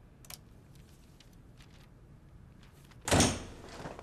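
A single loud thump about three seconds in with a short rough tail, after a few faint clicks.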